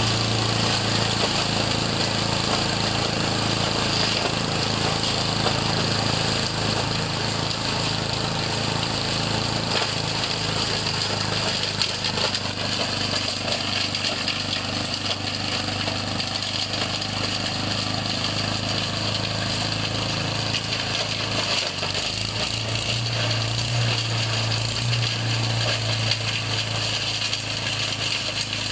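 An engine-driven garden shredder running steadily, with a continuous engine drone, while its blades grind leafy branches fed into the hopper into mulch. The shredded material is being made into compost fertilizer.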